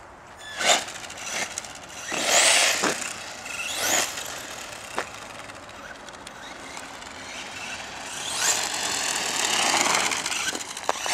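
Traxxas Stampede RC monster truck's electric motor whining up in pitch in short bursts of hard acceleration, twice early on and then a longer run near the end, with tyre noise on asphalt. A sharp knock comes about a second in.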